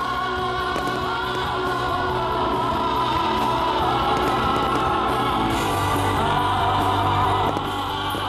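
Show soundtrack music with choir-like singing in long held notes. It swells a little about two seconds in and eases back near the end.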